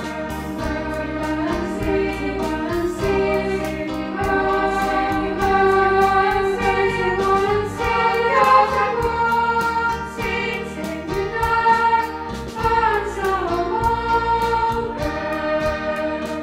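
A choir singing the school anniversary song over instrumental accompaniment with a steady beat.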